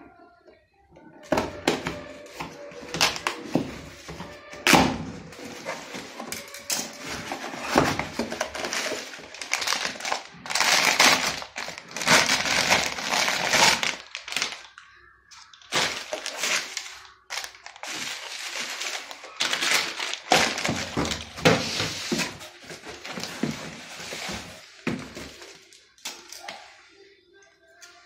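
A cardboard box being cut open and unpacked by hand: scissors on packing tape, cardboard flaps and plastic bubble wrap rustling and crinkling in irregular bursts, with knocks and thunks as the box and its parts are handled.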